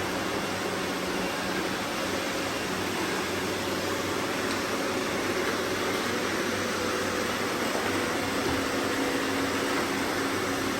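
Robot vacuum cleaners running: a steady whirring hum of motors and suction fans, with a few faint steady tones that shift a little partway through.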